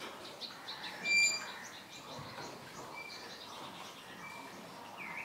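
Birds chirping: one short, loud high call about a second in, then a few brief chirps and a short sliding note near the end.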